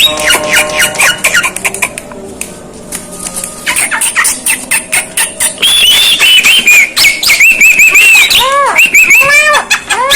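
Javan myna giving a rapid, varied jumble of whistled notes, squawks and sharp clicks; it goes quieter about two seconds in, then comes back loud about four seconds in with fast clicking and high whistles, and ends in a run of short arched notes.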